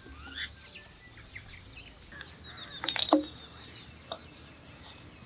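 Small birds chirping in short, high calls, with a sharp click about three seconds in and a fainter one about a second later.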